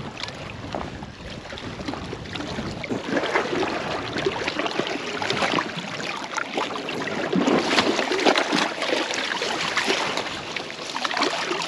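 Water splashing and lapping against breakwall rocks at the waterline, a busy, irregular patter that grows livelier partway through.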